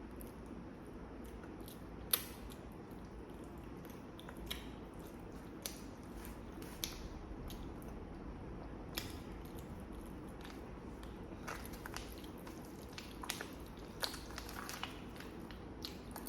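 A person chewing and biting food close to the microphone: irregular wet mouth clicks and smacks, the sharpest about two seconds in, over a steady low hum.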